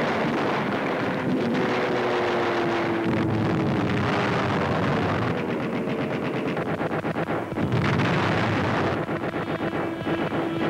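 Rapid anti-aircraft gunfire rattling over the drone of an aircraft engine, whose pitch falls slowly through the first several seconds, with a heavier blast about eight seconds in.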